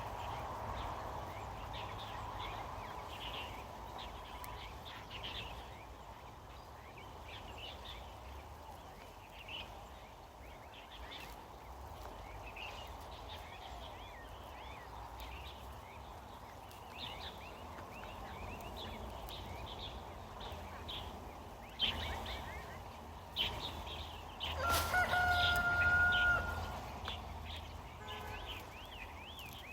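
Small birds chirping over a low outdoor background, then a rooster crows once about 25 seconds in, the loudest sound here, its held call lasting about two seconds. Two sharp knocks come just before it.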